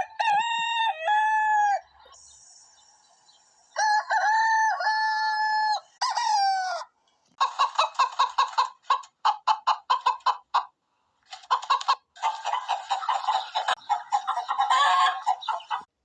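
A rooster crowing twice, the second crow ending in a falling note. It is followed by chickens clucking in quick short calls and then cackling densely for the last few seconds.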